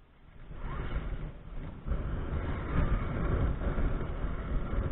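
RC crawler tank climbing a dirt slope on metal tracks: its small electric drive motors run while the metal track links clatter and grind. The sound starts about half a second in and gets louder about two seconds in.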